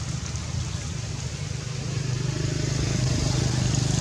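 A motor engine running nearby, a steady low rumble that grows louder about halfway through.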